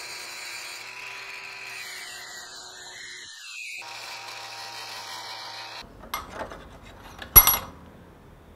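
Angle grinder running with its abrasive disc against the edge of a steel plate clamped in a vise, grinding the metal clean for welding. It stops about six seconds in, followed by a few metal knocks, one sharp and loud about a second later.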